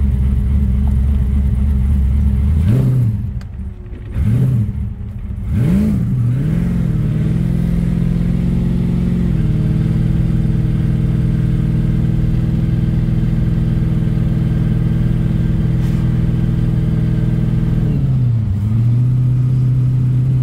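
Supercharged car engine heard from inside the cabin while driving. Its note dips and climbs again three times in quick succession a few seconds in, then holds a steady drone at cruise, with one more dip and rise near the end.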